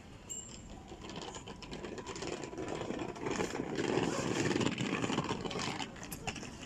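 Electric tram pulling into a stop: wheels rumbling on the rails with motor and brake noise, building to a peak about four seconds in and easing off as it slows to a halt. A few sharp clicks near the end.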